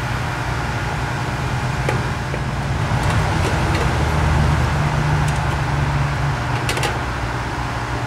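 A handful of light metallic clicks as wire spade connectors are worked off and onto the terminals of an HVAC condensing unit's 40/5 dual run capacitor, over a steady low hum.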